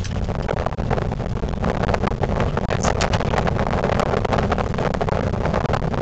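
Steady rushing, crackling noise inside a moving cable-car gondola: wind over the microphone through the open window together with the cabin's running noise.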